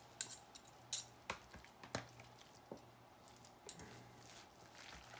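Metal forks shredding soft, wet slow-cooked pork shoulder: a handful of irregular sharp clicks of the tines striking the pot, with soft squishy tearing and scraping in between.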